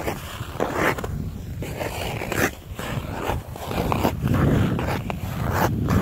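Ice skate blades scraping and gliding over frozen pond ice in a series of uneven strokes, each a rasping hiss, with a low rumble underneath.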